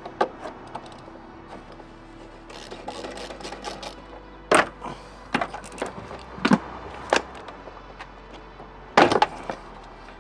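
Scattered sharp clicks and knocks of hand tools and plastic as a car's airbox bracket is worked loose, the loudest about four and a half seconds in and a quick cluster near the end, over quiet background music.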